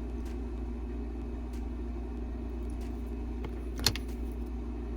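Steady low room hum with a few light clicks and one sharper click about four seconds in: makeup bottles and compacts being handled and set down.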